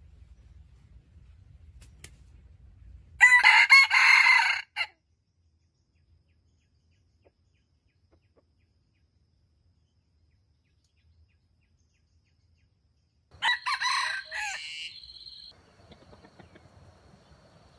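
Red junglefowl rooster crowing twice, each crow short and loud, the first about three seconds in and the second about ten seconds later.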